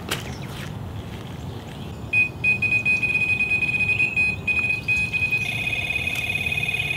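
Delkim Txi+ electronic carp bite alarm sounding from about two seconds in: a continuous, rapidly pulsing high-pitched beep, with a second tone joining partway through. It is a full run, a carp taking line on a second rod while another fish is already hooked: a double.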